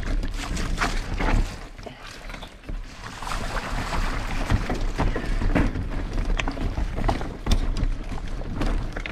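Mountain bike descending a rough dirt trail: a rushing, rattling noise broken by many sharp knocks from bumps and landings, briefly quieter a couple of seconds in.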